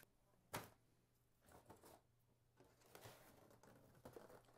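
Faint handling of black plastic seedling trays on a wire shelf: one sharp knock about half a second in, then a few light clicks and rustles.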